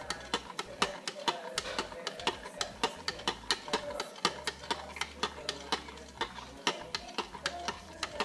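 Metal spoon stirring milk in a glass Pyrex measuring cup, clinking against the glass in a steady rhythm of about four to five strikes a second.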